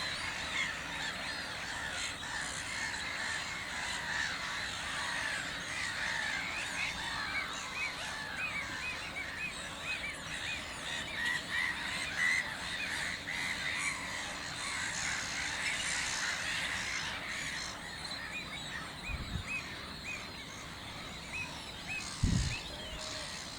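Many wild birds calling in the background, a dense run of short repeated chirps over a steady outdoor hiss. Two brief low thumps come near the end.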